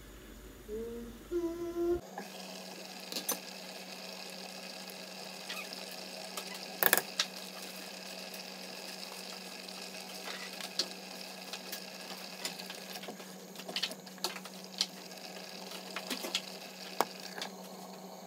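A pot of mutton stock boiling on a gas stove: a steady bubbling hiss over a low hum, broken by sharp clicks and knocks of a spoon and lid against the pot, the loudest about seven seconds in. The first two seconds hold a few short, wavering pitched sounds before the boiling takes over.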